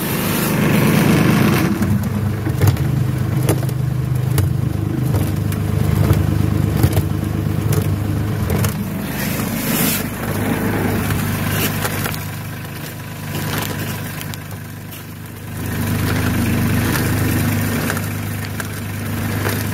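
Salt spreader running: a steady low hum from its drive with rock salt rattling and scraping through the hopper and being flung off the spinner. The hum drops for a few seconds past the middle, then comes back.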